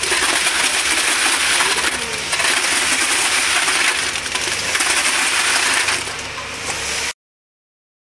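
Topworld C7 truck-mounted concrete mixer pump pushing concrete through its delivery pipe into the formwork, a loud steady rush with a low engine hum beneath. It eases briefly about every two seconds with the pump's strokes and cuts off suddenly about seven seconds in.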